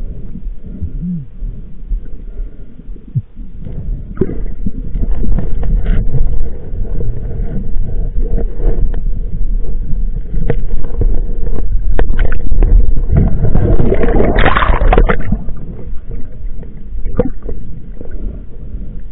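Boat underway: a steady low rumble with wind buffeting the microphone and scattered knocks, and a louder rush of noise about two-thirds of the way through.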